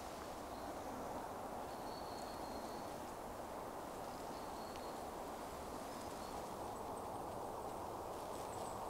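Quiet woodland ambience: a steady soft rush in the background, with a few faint, thin, high-pitched bird calls.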